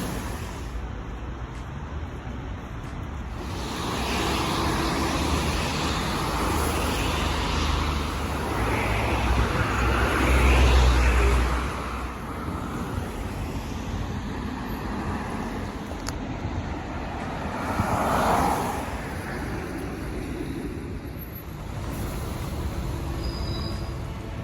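Road traffic going by: vehicles passing with a low rumble, one swelling to the loudest pass about ten seconds in and another shortly before twenty seconds.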